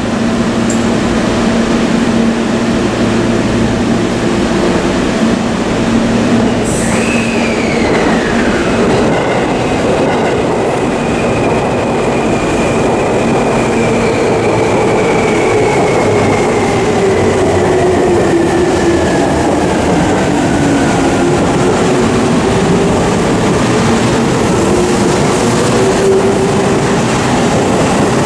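Seibu 20000-series electric commuter train pulling out of the station and gathering speed along the platform. Its traction motors whine in slowly shifting tones over the running noise of the wheels, and a falling whistle-like tone sounds about seven seconds in.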